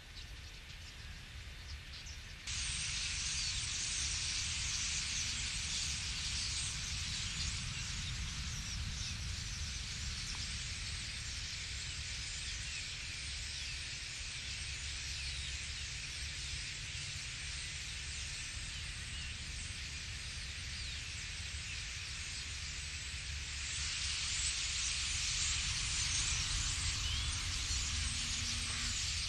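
A huge flock of European starlings chattering and calling all at once as a dense, continuous din, over a low wind rumble on the microphone. It comes in abruptly a couple of seconds in and grows louder near the end.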